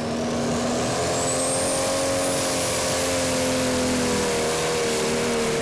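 Diesel engine of a competition pulling tractor with AGCO Power branding, at full throttle as it drags the weight sledge down the track. The engine note holds loud and steady and sags a little near the end, with a thin high whistle rising over the first two seconds or so.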